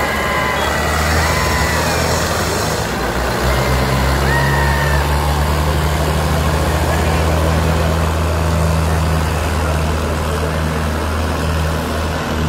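Two diesel tractors, an HMT 5911 and a Mahindra Arjun 605, pulling hard against each other in a tractor tug-of-war, their engines running under heavy load with a steady low drone. The engine note grows stronger about three and a half seconds in.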